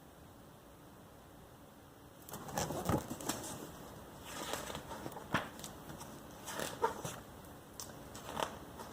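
Glossy magazine pages being handled and turned: paper rustling with several sharp flicks and taps, starting about two seconds in.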